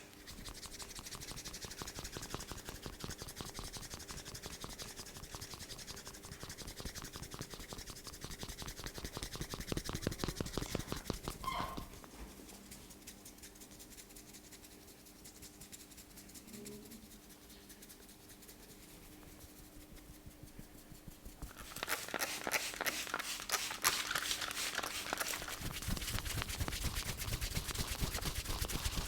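Hands rubbing in a massage, many quick rapid strokes; quieter for a stretch around the middle, then louder and brighter in the last third.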